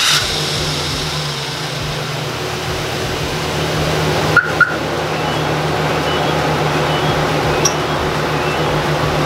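GMC Sierra pickup's engine idling steadily, just after being started, with a low even hum. Two short high beeps sound in quick succession about four and a half seconds in.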